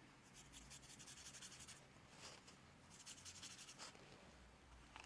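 Faint, quick strokes of a paintbrush over embossed cardboard, lightly brushing on watered-down paint.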